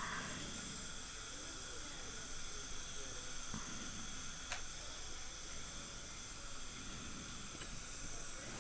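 Steady hiss with faint high whining tones from dental equipment at work, a high-speed handpiece and suction, with a couple of faint clicks.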